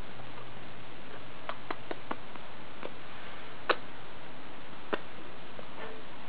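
Irregular sharp clicks and taps from a green-cheeked conure's beak and claws as it climbs and nibbles, several quick ones in a cluster then single louder ones, the loudest a little past halfway.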